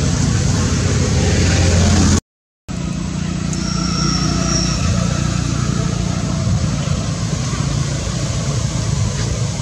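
Steady low motor rumble, like a vehicle engine running, broken by a half-second dropout to silence about two seconds in.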